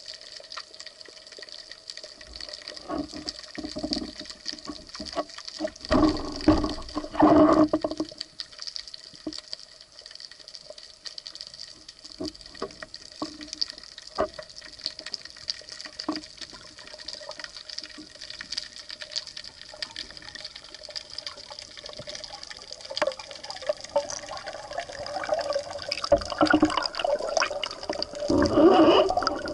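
Underwater sound through an action camera's housing during a breath-hold spearfishing dive: a steady watery hiss with faint steady tones, broken by a louder stretch of knocks and rubbing about six to eight seconds in. Near the end a rushing water noise swells as the diver rises toward the surface.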